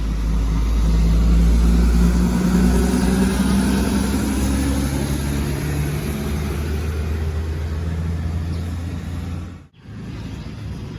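A large intercity bus's diesel engine rumbling close by as the bus comes in and passes, loudest a second or two in. The sound drops away suddenly near the end, leaving a quieter background.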